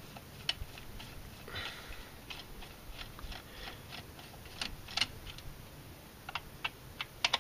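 Scattered light clicks and ticks of hand tools on metal while a throttle-cable bracket on a Jeep 4.0 engine is being worked loose. The clicks come at irregular intervals, a few sharper ones near the end.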